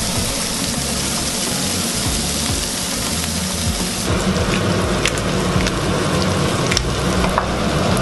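Shrimp sizzling in hot oil in a stainless-steel frying pan, a steady hiss. About four seconds in, the sound changes to onions and cherry tomatoes frying in a second pan, with a few sharp clicks as a pepper mill is twisted over it.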